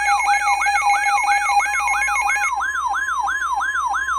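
Weather radio alert siren: a rapid rising sweep repeating about four times a second over a steady tone. About two and a half seconds in, the broadcast's steady 1050 Hz warning alarm tone joins it, signalling an incoming severe thunderstorm warning.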